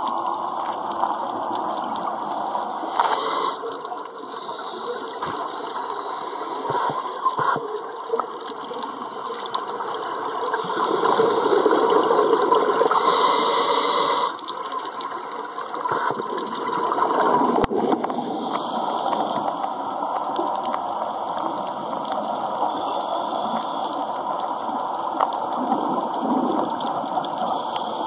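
Underwater noise recorded by a waterproof compact camera on a scuba dive: a steady rush of water with several louder surges of a diver's exhaled bubbles, the longest about halfway through.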